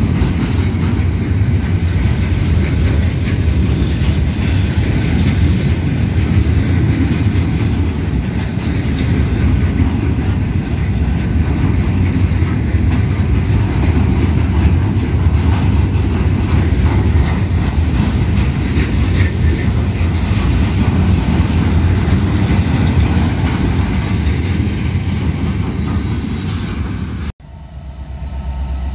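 Freight train of steel gondola cars rolling past at close range: a steady heavy rumble of steel wheels on the rails with clickety-clack over the rail joints. It cuts off suddenly near the end, and a quieter steady low rumble follows.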